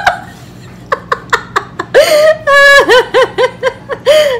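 A woman laughing: a few short breathy snickers, then from about two seconds in a high-pitched run of rapid 'ha-ha' laughs, with another burst near the end.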